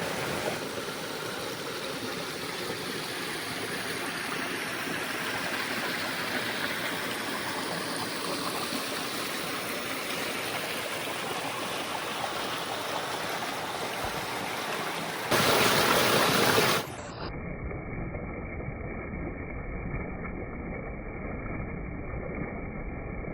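Jungle river flowing steadily, running high and full after rain. About two-thirds through comes a louder rush of noise lasting about a second and a half, after which the water sound turns muffled and dull.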